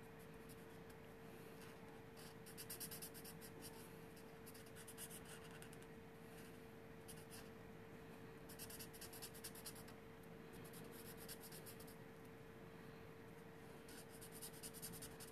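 Copic alcohol marker nib rubbing across paper as a dog image is coloured in, heard faintly in several short bursts of quick strokes. A steady faint hum runs underneath.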